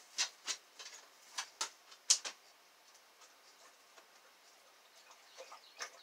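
A run of sharp little clicks and taps, about seven in the first two and a half seconds with the loudest just after two seconds in, then a few faint ones near the end: a small brass lock plug being handled and turned in the fingers.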